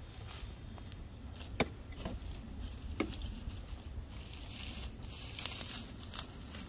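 Dry plant stalks and straw rustling and crackling as they are pulled and forked off a compost pile, with two sharp clicks about a second and a half and three seconds in, the first the loudest sound.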